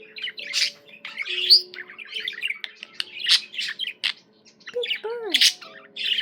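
Pet budgerigar warbling and chattering: a fast, unbroken run of short chirps and squawks.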